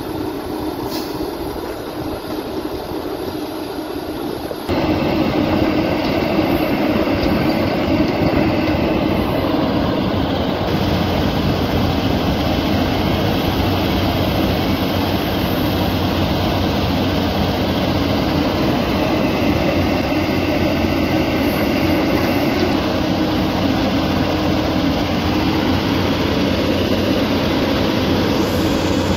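Heavy diesel engines of a Caterpillar excavator and a loaded dump truck running steadily. The sound jumps suddenly louder and closer about five seconds in, then holds a steady engine rumble with a low hum.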